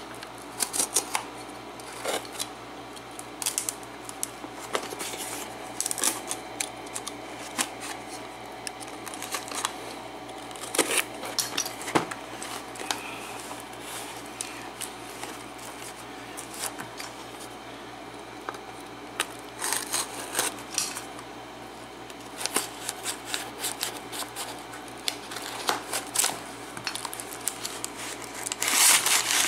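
Cardboard Priority Mail box being handled and opened: scattered clicks, taps and scrapes on the carton, then a louder run of tearing and rustling near the end as the end flap is pulled open.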